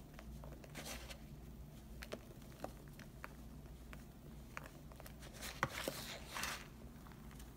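Packed chunks of Foca powdered laundry detergent mixed with baking soda crunching and crumbling in a hand, with scattered soft crackles and the hiss of falling powder. The loudest crumbling comes in a burst about five and a half seconds in.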